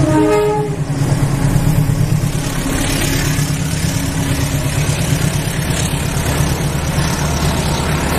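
The last of a diesel locomotive's horn blast, cutting off under a second in. Then the CC203 diesel-electric locomotive's engine runs hard with a steady, pulsing low rumble as it pulls its train past, its exhaust pouring dark smoke.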